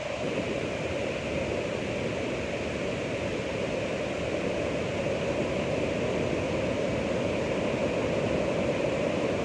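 Ocean surf: a steady, continuous rush of waves with no single break standing out, growing fuller in its lower range right at the start.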